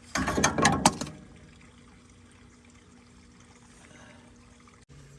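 A short clatter of wrench and socket handling at a truck's steering gear box, about a second long, then quiet with a faint steady hum.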